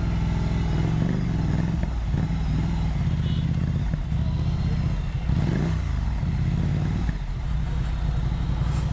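Ducati Monster 797's 803 cc air-cooled L-twin running through its exhaust as the bike is ridden. The engine note rises and falls, with a quick drop and rise in pitch about five and a half seconds in.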